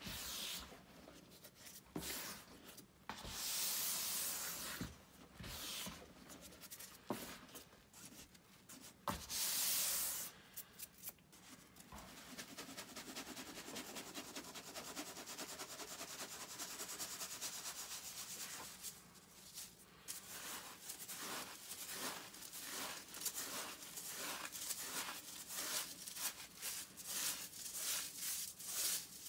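Powdered gym chalk rubbed and crumbled by hand in a bowl, giving bursts of dry hissing, then sifted through a wire-mesh sieve as a steady fine hiss that turns into quick rhythmic shaking strokes in the second half.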